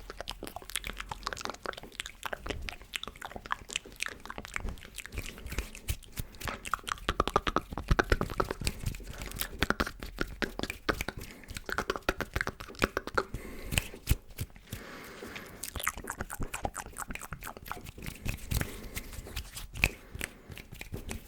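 Close-miked ASMR mouth sounds, a dense, irregular run of wet clicks and smacks, mixed with hand sounds.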